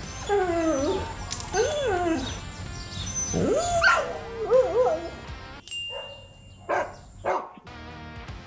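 A dog whining and yelping in a run of rising and falling calls for about five seconds, then two short barks near the end, over background music.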